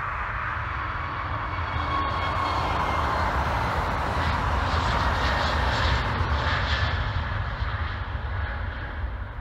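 Airbus A321neo LR's turbofan engines at takeoff thrust as the jet rolls down the runway and lifts off: a steady rushing jet noise over a deep rumble that swells as the aircraft passes, then fades toward the end.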